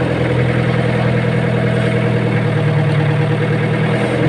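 Fishing boat's engine running steadily at an even, idle-like speed.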